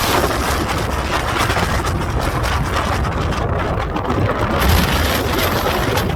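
Strong gusting wind buffeting the microphone: a steady loud rumble and roar with fluttering.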